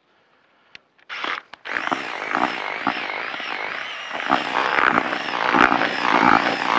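Cordless drill spinning a whisk through wet groundbait in a bucket: a motor whine with scraping and churning. It starts in a few short bursts about a second in, then runs continuously.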